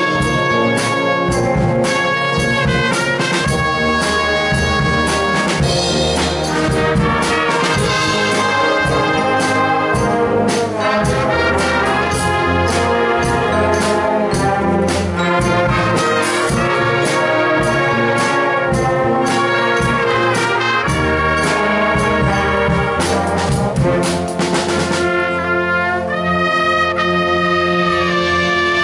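Symphonic wind band playing live, with brass to the fore over sustained chords and many sharp percussive strikes.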